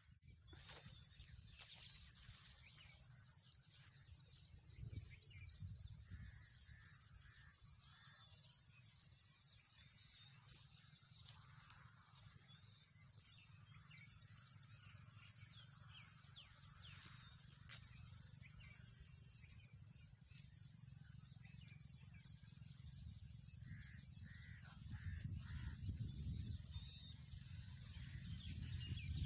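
Faint rural outdoor ambience: scattered bird calls and a steady high-pitched whine, over a low rumble that grows louder near the end.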